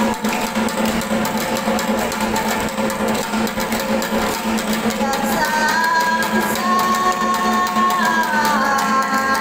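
Music: sustained melody notes over a steady held low note, the melody moving in pitch from about halfway through.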